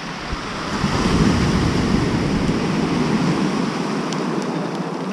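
Sea waves breaking and washing up a pebble beach, with wind buffeting the microphone. The noise swells about a second in and eases off near the end.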